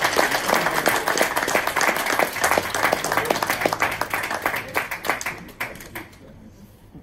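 An audience applauding, many hands clapping at once, dying away about six seconds in.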